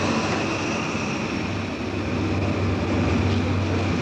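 Train standing at a station platform: a steady low rumble and hum with an even hiss over it.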